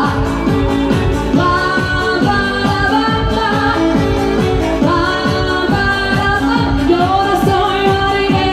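Live band dance music: a woman singing over a steady electronic beat with a kick drum about twice a second.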